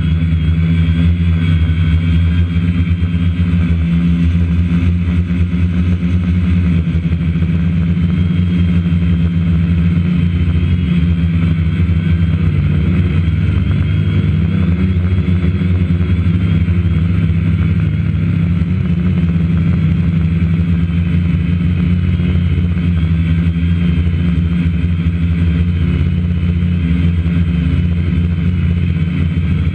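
Multirotor drone's motors and propellers running steadily in flight, heard from its onboard camera: a loud, steady low hum with a higher whine above it that wavers slightly in pitch.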